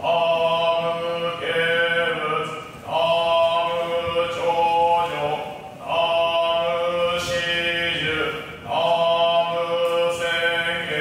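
Buddhist shōmyō chant by a monk: long, held, sung phrases, each broken by a short pause for breath every two to three seconds.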